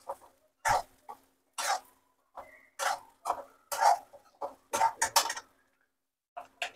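A series of short scrapes and knocks of a spoon against a bowl and a kadai, about one or two a second, as leftover spiced chana dal is spooned over stuffed bitter gourds frying in the pan.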